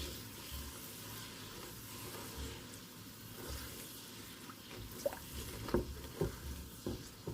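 Milk, sugar and ghee heating together in a pot on the stove, giving a soft steady hiss, with a few light clicks and knocks in the second half.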